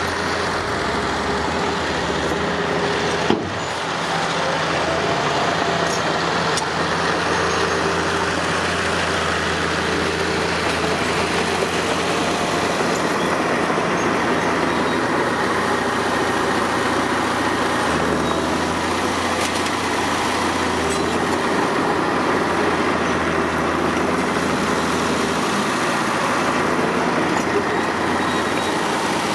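Heavy diesel engines of earthmoving machinery running steadily, their pitch shifting now and then, with one sharp knock about three seconds in.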